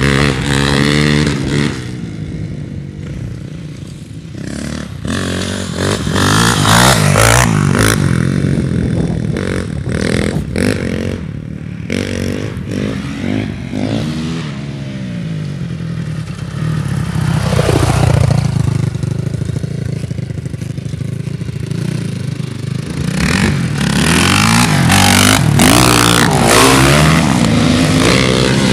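Honda dirt bike engine revving up and down again and again as it is ridden across a field, its pitch rising and falling with each throttle change, with irregular bursts of noise over it.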